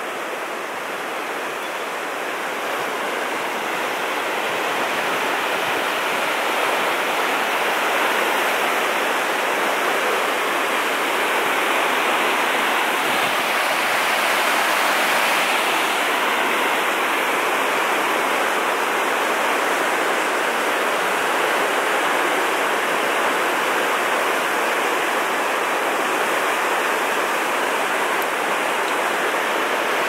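Fast-flowing river rushing over shallow rocky rapids: a loud, steady rush of water that builds slightly over the first few seconds.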